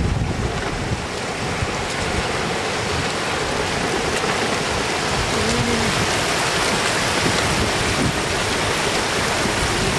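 Shallow floodwater rushing in a sheet across a paved road, a steady splashing flow.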